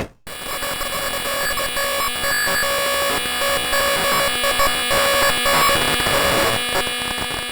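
Synthesized electronic sound effect: a dense, buzzing wall of many held tones over hiss, flickering rapidly throughout, starting abruptly just after a brief silence and slowly fading near the end.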